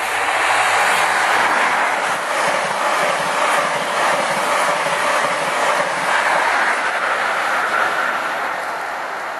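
Freight train of hopper wagons rolling past close by: a steady rush of wheels on rail that swells up and begins to fade near the end.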